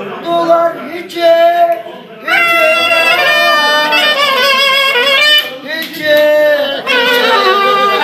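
A man sings short held phrases, then a metal clarinet comes in about two seconds in, playing a bright, continuous melody with wavering, ornamented notes.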